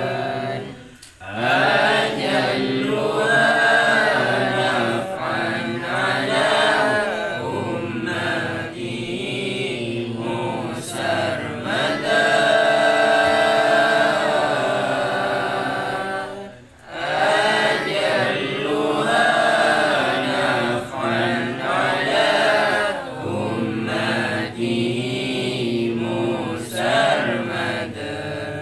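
A man's solo voice chanting a long melodic recitation, holding and bending each note. There are two short breaks, about a second in and just past halfway.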